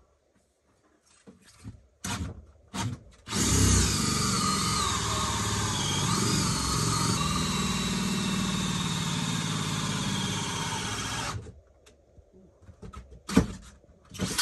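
Cordless DeWalt drill turning a hole saw into the wall, cutting the opening for a range-hood vent. Two short trigger pulls, then about eight seconds of continuous cutting with the pitch wavering as the saw bites, stopping abruptly. A sharp knock follows near the end.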